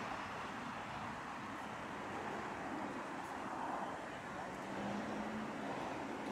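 Steady city street ambience: a continuous hum of distant road traffic with faint, indistinct voices of passers-by.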